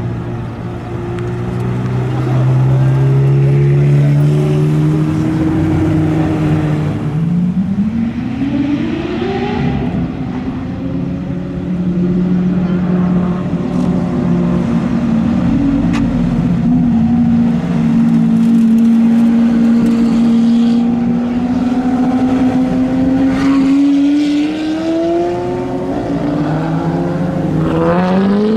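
Supercar engines, Ferraris and a Lamborghini Aventador among them, running at low speed as the cars roll past one after another. The revs rise about seven seconds in and climb again near the end, with a long steady stretch between.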